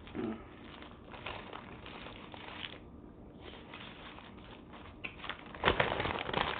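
Close-up eating sounds from a cheesesteak: chewing and small mouth clicks, with crinkling of the food wrapping, and a louder crinkling burst near the end.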